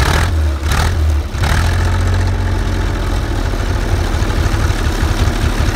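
Large WWII German armoured vehicle's petrol engine running loud just after starting, with a few quick surges of revs in the first second and a half, then running steadily with a low, uneven beat.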